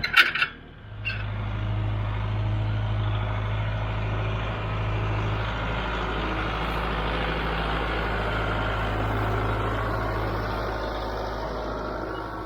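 An engine running steadily at an even speed, preceded by a brief sharp clatter of clicks right at the start.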